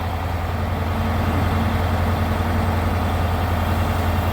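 Diesel truck engine idling with a steady low drone.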